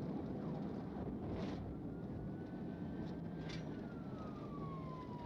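Steady running noise of a vehicle in a police pursuit, with a faint siren tone that climbs slightly and then slowly falls over the last few seconds, and two brief clicks.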